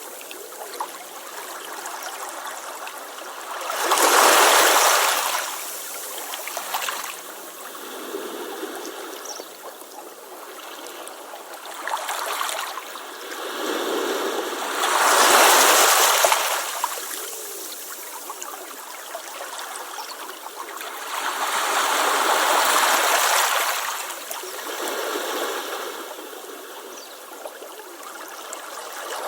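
Waves breaking on a beach: the surf swells and washes up about four times, the loudest crashes a few seconds in and around the middle, with a steady wash of water between them.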